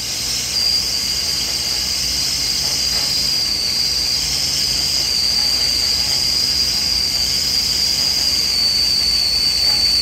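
Stainless-steel stovetop whistling tea kettle whistling at the boil: one steady, high whistle that wavers slightly in pitch, over the hiss of steam from the spout, signalling that the water has boiled.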